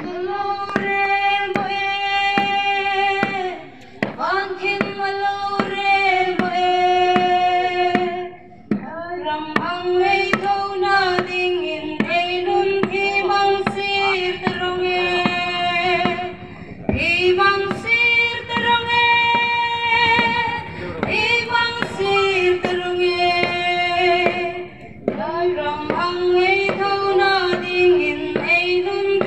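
Singing for the Hmar chawnlam dance: a sustained, mostly held melody sung in phrases of about four seconds with short breaks between them, over a steady beat.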